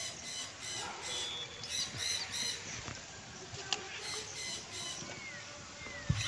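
Rhythmic high-pitched chirping, about three pulses a second, from an animal calling in the dark. It comes in two runs, the second shorter, with one sharp click between them.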